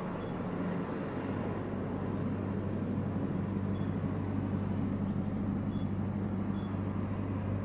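Steady low hum and rumble of a gondola lift cabin in motion, heard from inside the cabin.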